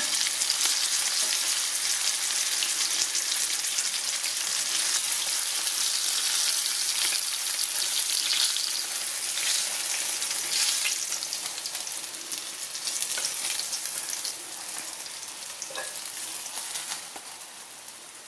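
Breaded catfish fillets frying in hot oil in a cast iron skillet: a steady, dense crackling sizzle that grows quieter over the last few seconds.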